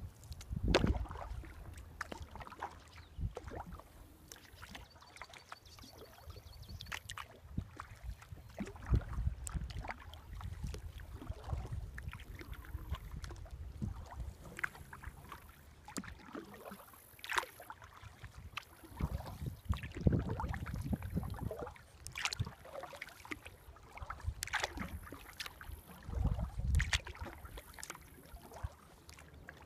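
Kayak paddling on calm water: paddle blades dipping and pulling, with drips and small splashes at an uneven pace and occasional low rumbles.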